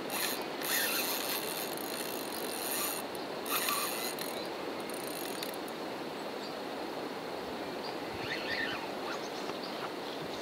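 Fishing reel working under the load of a hooked catfish, its mechanism whirring in bursts over the first five seconds, over a steady background hiss.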